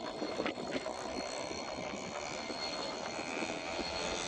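Freight train rolling away on its rails, with its rear pushing locomotive, an EMD SD70ACe, running under power at the tail. A steady hum is overlaid by a couple of sharp clicks about half a second in.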